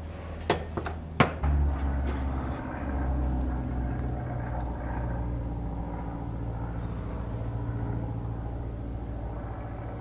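A few sharp metal clicks as a spoked bicycle wheel and its parts are handled, the loudest about a second in. After that a steady low rumble runs on.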